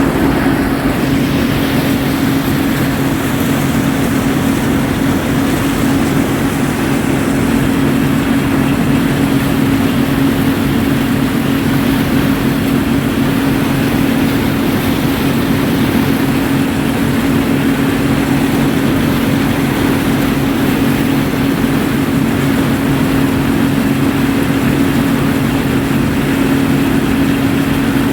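Combine harvester running steadily while harvesting corn: a constant engine drone with a strong, even hum.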